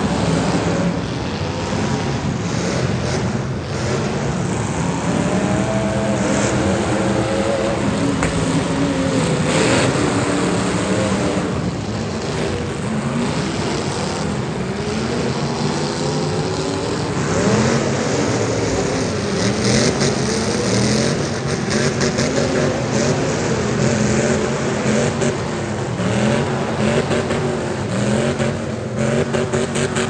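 Several demolition derby cars' engines revving up and down as they ram one another, with occasional crashes of metal on metal.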